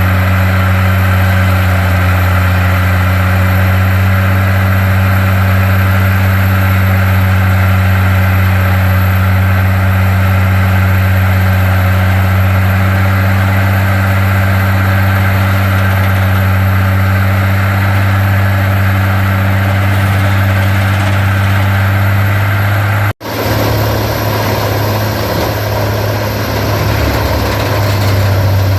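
Peterson 4710D horizontal grinder running under its big diesel engine: a loud, steady, deep drone. About 23 seconds in the sound cuts out for an instant, and afterwards the low rumble is rougher and less even.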